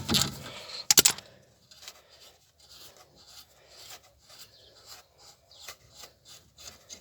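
Ratchet wrench with a 14 mm socket undoing a brake caliper bolt: rapid clicking that stops just under a second in with one sharp metallic clack, followed by faint, slower scattered clicks and rubbing of metal parts.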